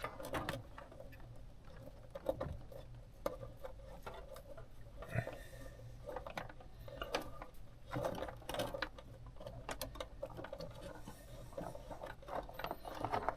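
Faint, irregular clicks and rustling of a wire being worked through a rubber firewall grommet by hand.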